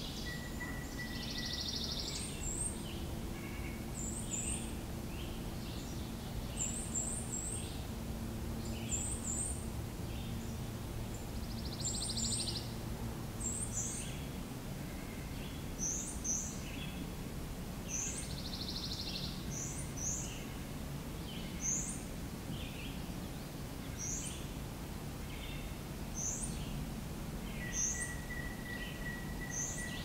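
Small wild birds calling: short, very high rising chirps, often in pairs, repeated every second or two. A buzzy trill comes three times in the first twenty seconds and a steady whistle near the end, over low background noise.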